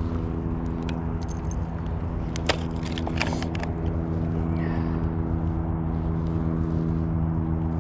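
Steady low hum of a motor running without change, with a few light clicks about two and a half to three and a half seconds in.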